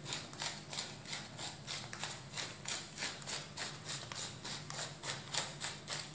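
Hand-twisted pepper mill grinding, a steady run of dry crunching clicks about four a second.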